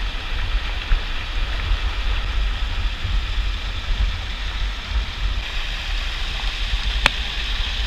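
Water of a small waterfall pouring and its spray splashing, a steady rushing hiss over a heavy low rumble. A single sharp click about seven seconds in.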